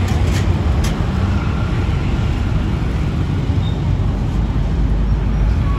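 Steady low rumble of street traffic, with a few light clicks in the first second.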